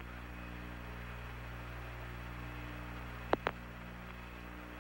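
Steady electrical hum and hiss on the Apollo 11 air-to-ground radio recording with no voice on the link. Two short clicks come a little after three seconds in.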